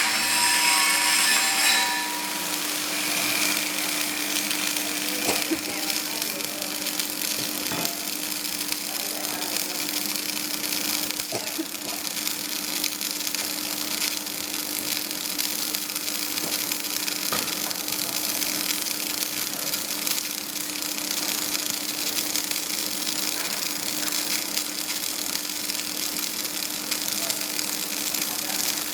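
Flux-cored arc welding on carbon steel: the arc crackles and hisses steadily as a horizontal fillet weld is run, over a steady hum.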